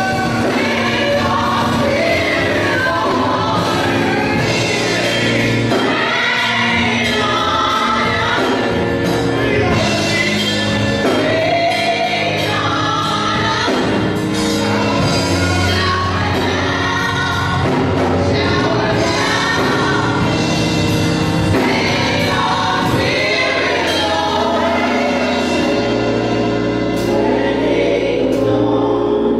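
Gospel worship song sung by a group of women vocalists in harmony, with keyboard and drum accompaniment.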